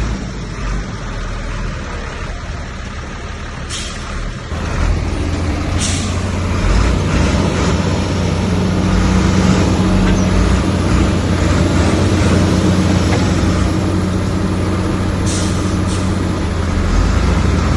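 Heavy diesel engine of earthmoving machinery running hard, getting louder about four and a half seconds in. A few short hisses cut through, near four, six and fifteen seconds.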